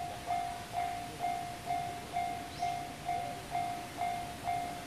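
Japanese railway level-crossing warning bell ringing, about two dings a second. Each ding is one clear tone that fades before the next one. It is the signal that the crossing is closed and a train is approaching.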